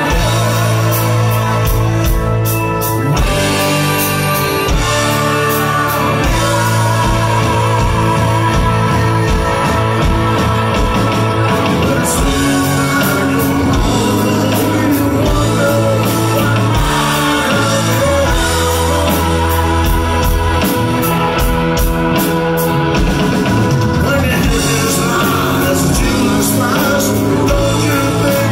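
Live rock band playing loudly: singing over electric guitars, bass and drums.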